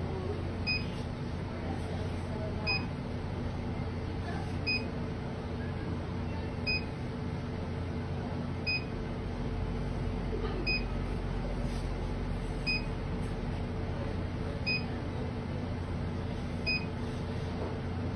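A short, high electronic beep repeating about every two seconds over a steady low hum.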